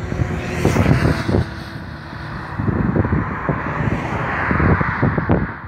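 Steady buzzing drone from parked passenger coaches, swelling about four seconds in, under gusts of wind buffeting the microphone, which are the loudest sound.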